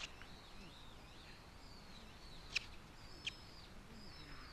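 Birds chirping repeatedly in short curved calls, with a few sharp clicks, the loudest about two and a half seconds in.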